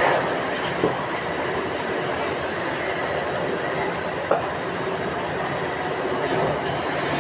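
Steady mechanical running noise with a faint squeal, broken by two short sharp clicks, one about a second in and one past the middle.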